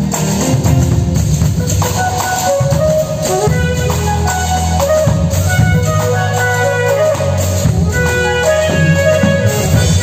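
Saxophone playing a melody of held notes over a backing track with a steady bass line and light percussion.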